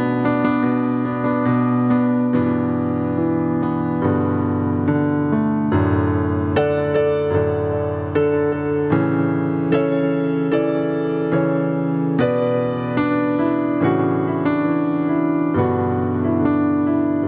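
Keyboard music: slow, sustained chords that change every second or two.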